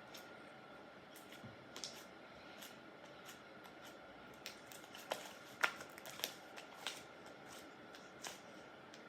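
Hands kneading and stretching freshly activated slime on a table: irregular soft sticky clicks and pops, a few louder ones in the middle.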